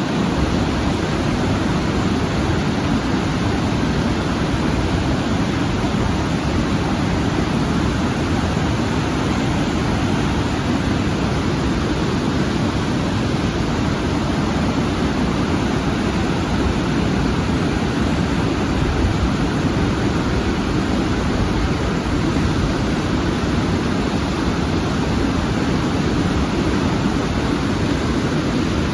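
Large waterfall: a steady, loud rush of falling water with no breaks.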